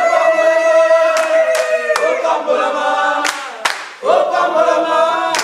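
Church congregation singing unaccompanied, holding long notes in two phrases, with scattered hand claps.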